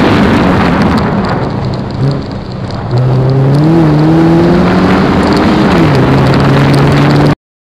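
Rally car driven hard on a gravel stage: the engine runs under load while gravel and stones rattle and spray under the tyres. The engine eases off about two seconds in, pulls hard again from about three seconds, drops in pitch near six seconds as with an upshift, and the sound cuts off suddenly near the end.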